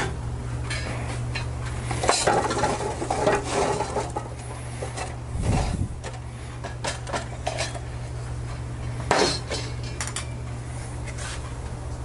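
Lit charcoal briquettes poured from a chimney starter, clattering and clinking into a Lodge Sportsman's Grill's cast-iron firebox. The densest clatter comes about two seconds in, with scattered clinks after and one sharp knock near nine seconds.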